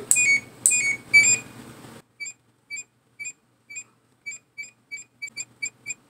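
A General Electric washer-dryer combo's control panel beeps as its settings are changed and its Add Dry Time down button steps the estimated time down. Three louder beeps come in the first second and a half, then a run of short, fainter beeps that gets faster toward the end, up to about four a second.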